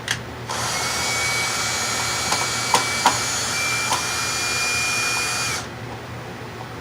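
A handheld power drill runs for about five seconds and then stops suddenly. Its motor whine steps up slightly in pitch partway through, with a few light clicks over the motor.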